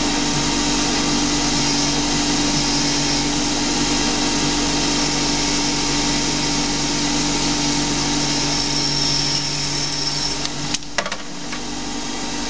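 Small CNC lathe running steadily while it turns and grooves a Delrin part, with a high whine from about nine seconds in and a few sharp clicks around eleven seconds.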